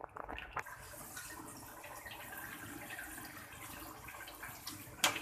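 Raw chicken pieces sizzling steadily in a pan of hot oil and spices, with a couple of sharp knocks near the end.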